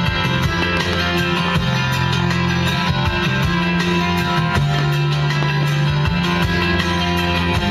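Guitar-led music with long held low notes that change every second or so.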